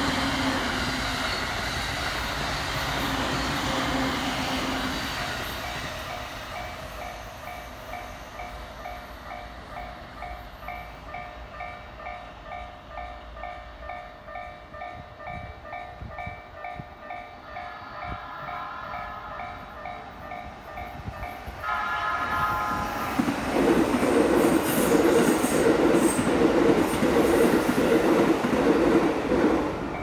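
An E231 commuter train running past over the rails, fading away after a few seconds, while the level-crossing warning bell rings in a steady, even rhythm. A train horn sounds briefly at about 18 seconds and again at about 22 seconds, followed by the loud, rising noise of a train running close by toward the end.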